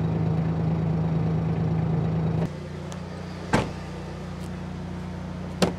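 Kubota LX2610 compact tractor's diesel engine running steadily. About halfway through the hum drops abruptly to a quieter, lower drone, and two short sharp knocks follow.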